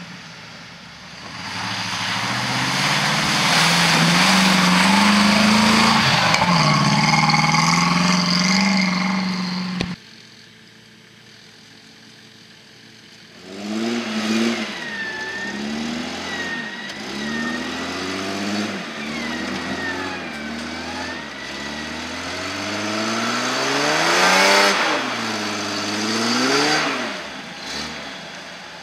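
Jeep Cherokee engine revving hard under load with its tyres churning through mud and water. After a sudden cut about ten seconds in, the engine revs up and down again and again as the Jeep claws through deep ruts, with a thin wavering whine above the engine.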